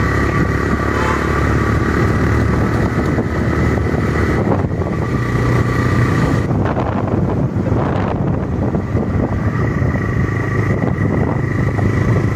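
Steady road noise of a moving vehicle in traffic, with engine and a heavy low rumble.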